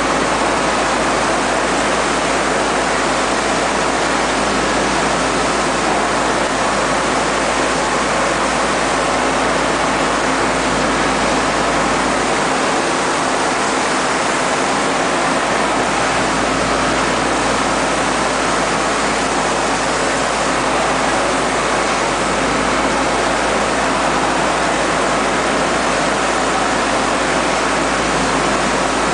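Putzmeister wet-mix shotcrete nozzle spraying concrete with compressed air onto tunnel rock: a loud, steady rushing hiss, with a faint steady machine hum beneath it.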